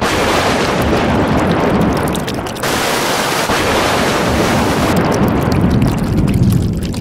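Stormy weather sound: a loud, dense rush of heavy rain and wind with a low rumble, starting abruptly and shifting a little about two and a half seconds in and again about five seconds in.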